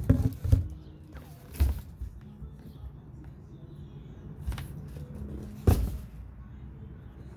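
Background music with a steady low line, broken by a few sharp thumps and knocks of handling, loudest in the first half second and again about six seconds in.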